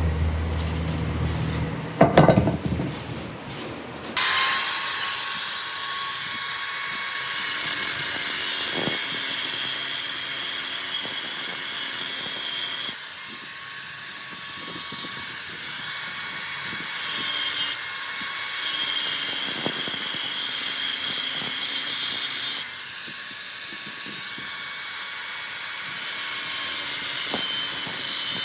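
Power tool working on metal in a machine shop: a low hum with a few knocks, then about four seconds in a loud steady hiss with a whining tone cuts in, stepping in level a few times.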